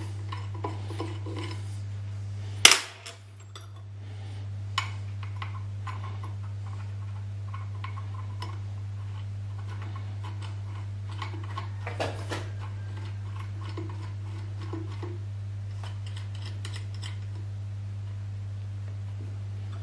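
Metal parts and tools clinking and knocking against a milling machine's steel table and vise, with one loud, sharp metal clank that rings briefly about three seconds in and a few more knocks around twelve seconds. A steady low hum runs underneath.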